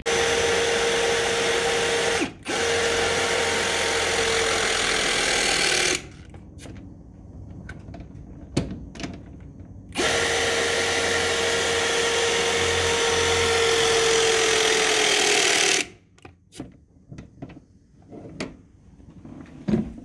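Milwaukee M18 12-tonne battery hydraulic cable crimper running its motor and pump as it crimps a lug onto a cable: a steady whine for about six seconds with a short break near the start. Quieter clicks follow, then a second run of about six seconds that cuts off suddenly, then more scattered clicks.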